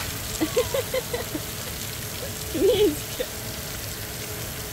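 Water from splash-pad fountains spraying and splashing down in a steady hiss.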